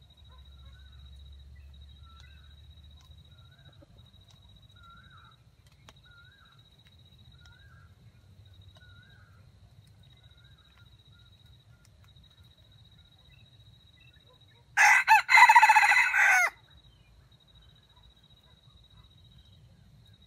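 Red junglefowl rooster crowing once, a short crow of under two seconds about three-quarters of the way through. Faint, evenly spaced high chirps repeat in the first half.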